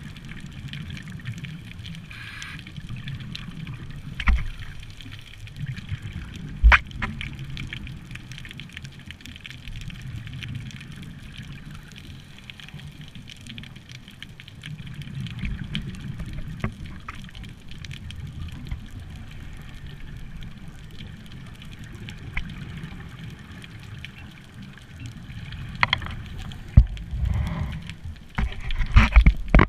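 Underwater sound through a camera's waterproof housing: a steady, muffled low rumble with two sharp clicks a few seconds in. Near the end comes a burst of bubbling and gurgling from a scuba diver's exhaled breath.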